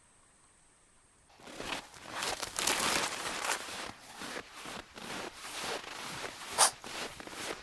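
Footsteps crunching through dry snow, beginning about a second in, roughly two to three steps a second, with one louder crunch near the end.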